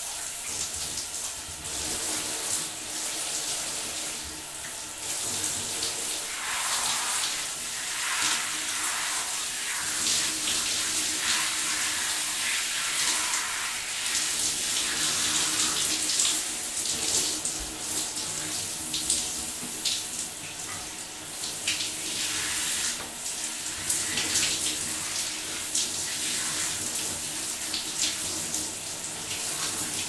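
Shower running: water spray hissing steadily, with many brief splashes and a level that rises and falls a little.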